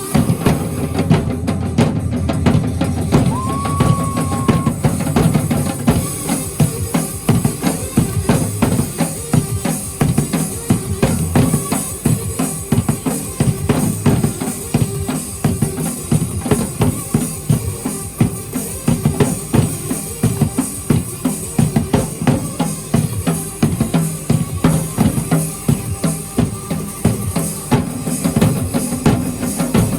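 A drum ensemble playing a fast, continuous, driving beat, with dense bass-drum and snare strokes. A brief high tone sounds about three seconds in.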